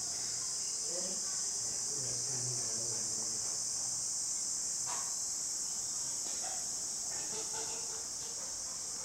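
Steady high-pitched hiss or chirring throughout, with faint voices murmuring softly underneath in the first few seconds and a soft click about halfway through.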